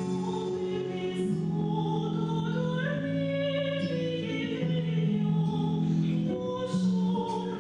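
A woman singing a slow melody over sustained instrumental accompaniment.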